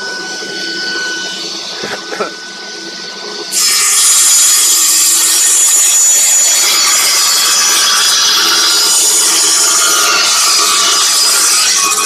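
Homemade table saw driven by a washing machine motor: the blade spins freely with a steady whine, then about three and a half seconds in it bites into construction plywood and a loud cutting noise runs on steadily. The saw cuts through without labouring.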